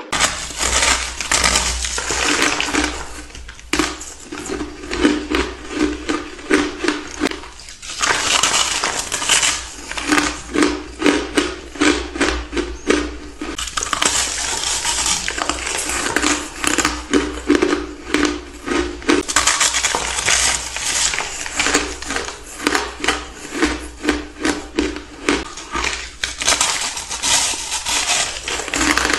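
Close-miked biting and chewing of a large chunk of packed crunchy ice: dense crisp crunching and crackling with each bite and chew, over a faint low hum.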